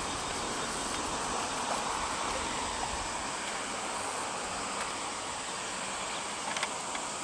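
Steady summer insect chorus, with a couple of small clicks about six and a half seconds in.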